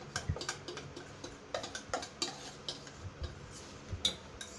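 Light, irregular clicks and taps of steel plates and a utensil being handled as dhokla batter is scraped into a second steel plate.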